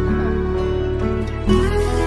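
Background music: an instrumental piece of held notes, changing to a new chord about a second and a half in.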